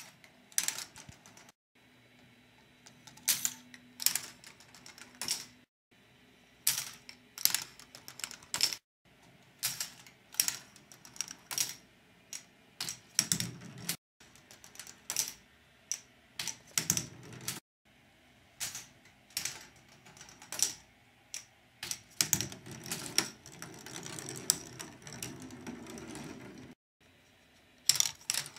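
Plastic balls running through a K'nex ball machine: irregular sharp clacks as the balls drop and knock against the plastic track and pieces. Late on, a few seconds of steady rolling rumble as balls run along a track, and a few brief dead-silent gaps break the clatter.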